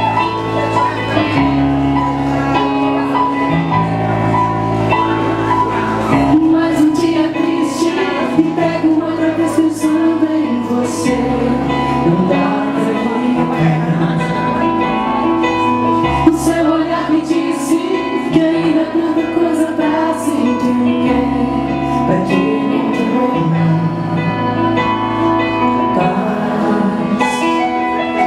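A woman singing a ballad live into a handheld microphone over instrumental accompaniment of sustained chords that change every couple of seconds. The voice comes in about six seconds in and drops out a few seconds before the end, leaving the accompaniment alone.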